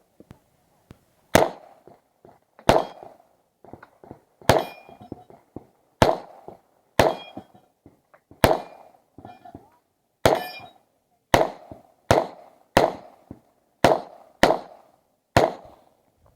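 A 9×19mm Uzi Pro pistol firing thirteen single shots at an uneven pace, about one every second or so, each cracking sharply with a short echo. Several shots are followed by a brief metallic ring from steel targets being hit.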